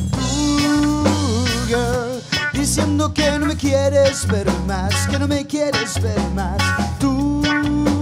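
Live rock band playing a song: electric guitars, electric bass, drum kit and timbales, with a steady bass line under a melody that bends in pitch.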